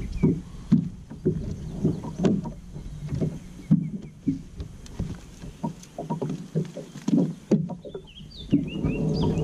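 Irregular knocks and bumps on a fiberglass bass boat as a caught fish is handled and stowed. Birds chirp near the end.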